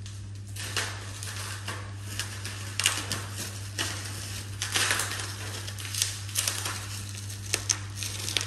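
Rustling and crackling handling noise close to the microphone, from clothing and plastic wrapping, in irregular bursts with a few sharp clicks over a steady low hum.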